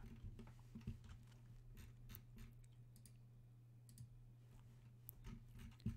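Faint, scattered computer mouse clicks over a low steady hum, close to silence.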